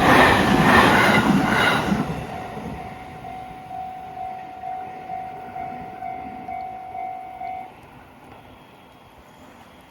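A train passes over the level crossing, loud with wheel clatter for the first two seconds, then fading away. The crossing's electronic warning bell keeps ringing at about two strikes a second and stops suddenly near the eighth second, once the train has cleared.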